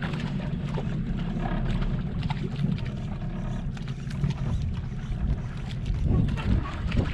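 Steady low rumble of a small fishing boat at sea, with wind on the microphone and a few faint knocks and clicks.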